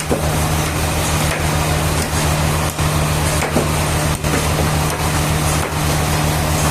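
Sawmill machinery running steadily, a constant engine-like hum under a noisy wash.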